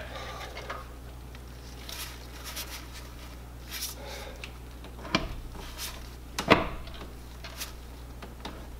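New 2600-stall torque converter being turned by hand and pushed onto a GM automatic transmission's input shaft to seat it, giving scattered light clicks and two sharper metallic knocks about five and six and a half seconds in. A steady low hum runs underneath.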